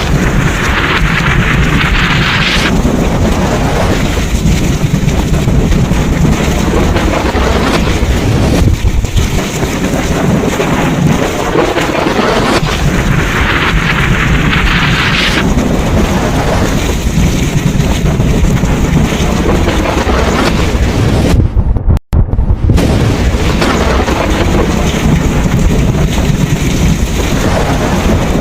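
Thunderstorm: heavy rain hiss over continuous low thunder rumble, with a brighter rush of rain that swells and fades about every 13 seconds. The sound cuts out for an instant about three-quarters of the way through.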